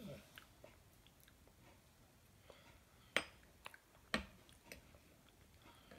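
A metal spoon clicking against a plastic bowl of oatmeal a few times, the two sharpest clicks about a second apart midway, with a toddler's faint chewing in between.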